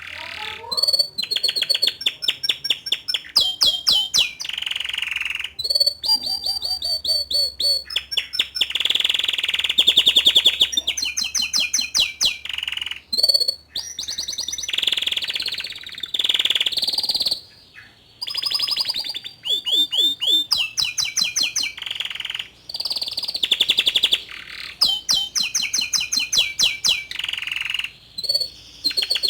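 Young male canary singing: rapid trills and fast runs of repeated notes, in phrases broken by brief pauses.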